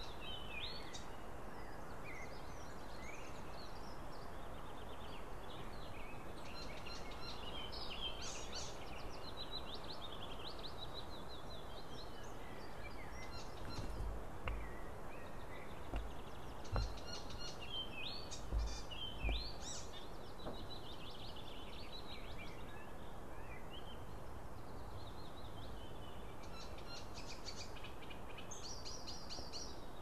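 Small birds singing in short, high trills and chirps over a steady background hiss, with a few low thumps around the middle.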